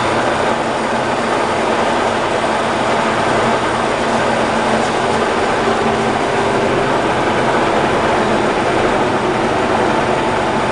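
Ryazan model 163 (DIP300) screw-cutting lathe running under power: a steady, loud mechanical whir with a few held tones.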